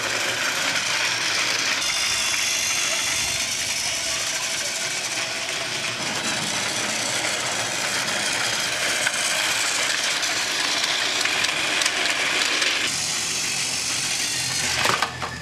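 Battery-powered Thomas TrackMaster Classic toy trains running on plastic track: a steady whirring, rattling gear-motor sound from the engines' motors and gearboxes.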